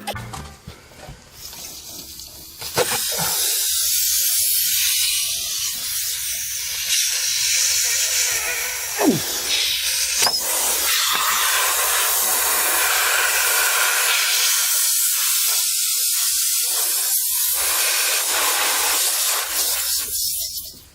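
Compressed air hissing out of a punctured truck tire around a plug-kit reamer tool being worked into the hole to enlarge it. The steady loud hiss starts about three seconds in and cuts off suddenly just before the end.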